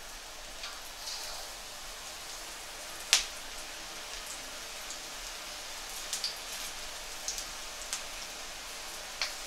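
Battered potato pakoras deep-frying in hot oil in a wok: a steady sizzling hiss with scattered pops and crackles, the loudest a sharp pop about three seconds in, as more batter goes into the oil.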